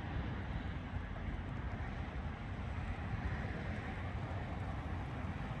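Steady road and wind noise inside the cabin of a 2025 Toyota Prius Limited while driving: a low rumble with a fainter, even hiss above it.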